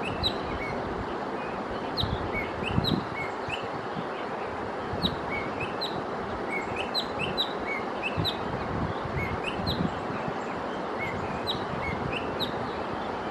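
Birds chirping, many short quick notes repeated over and over, over a steady rushing background noise, with a few low bumps, the loudest about three seconds in.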